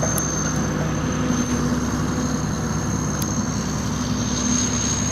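Tractor's diesel engine running steadily under load, with a constant high-pitched whine over the engine note.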